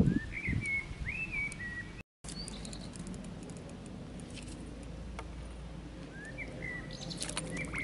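Small birds chirping in short, slurred calls, in a bout near the start and another near the end, over a steady low background rumble. The sound cuts out for a moment about two seconds in.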